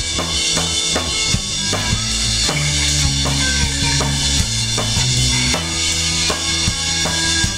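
Rock band playing an instrumental passage live: a drum kit keeps a steady beat over sustained bass guitar notes, with electric guitar and keyboards.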